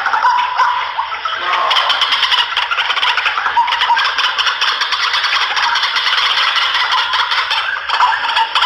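White-breasted waterhen (ruak-ruak) calling: a loud, continuous, rapid chattering croak, the kind of call played as a lure to draw the birds in.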